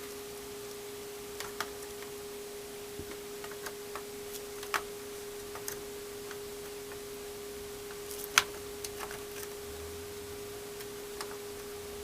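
Scattered light clicks and knocks of a RAM stick being pressed and worked into a motherboard memory slot, the sharpest click about eight seconds in, over a steady faint tone.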